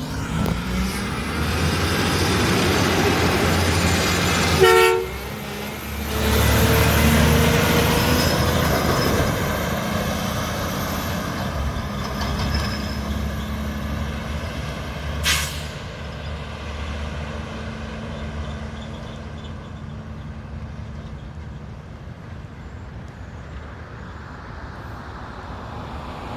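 Mack McNeilus front-loader garbage truck's diesel engine running, with a short horn honk about five seconds in. The engine then rises and slowly fades as the truck moves away, with a sharp click about fifteen seconds in.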